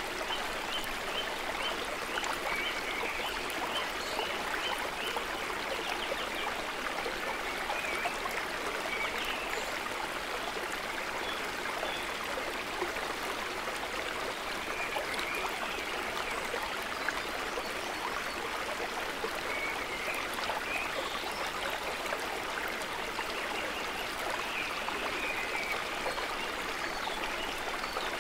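Shallow woodland stream running over rocks: a steady rush and babble of water.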